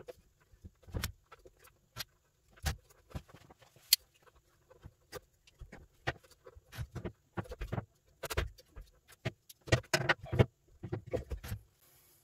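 Crimper-style wire cutters snipping through the power wires of a laser cabinet's LED strip, with irregular clicks and knocks from the tool and the wires being handled. The clicks come thicker and louder toward the end.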